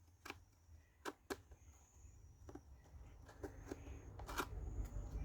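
Laser-cut wooden puzzle tiles being slid around in their frame, a scatter of short, irregular clicks and knocks as the tiles tap against each other and the frame. The tiles are being scrambled, which locks the puzzle box shut.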